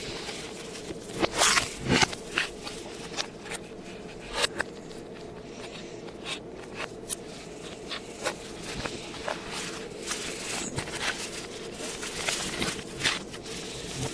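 Scattered clicks and short rustles of packaging being handled, played backwards, over a faint steady hum. The clicks are most frequent in the first few seconds and come again near the end.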